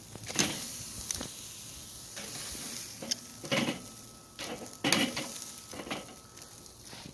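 Beef back ribs sizzling on the grate of a hot charcoal Weber kettle grill, with a few sharp clicks and pops scattered through.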